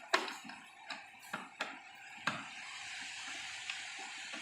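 A few small sharp clicks and scrapes of a Phillips screwdriver and the fog-light fitting being handled while the lamp's retaining screw is driven in, followed by a steady faint hiss.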